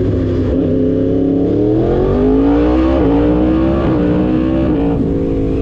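2023 Yamaha R1's crossplane inline-four engine running under way, its revs climbing from about two seconds in, dipping briefly twice, then dropping near the end.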